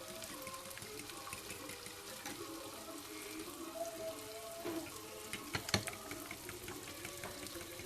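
Eggs being beaten in a bowl with a fork or whisk: a quick run of light wet clicks and sloshing, with a few sharper taps against the bowl a little past the middle.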